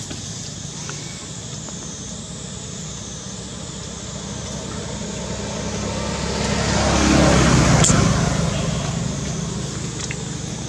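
A motor vehicle passing by. It grows louder over a few seconds, is loudest about seven to eight seconds in, then fades, over a steady low engine hum.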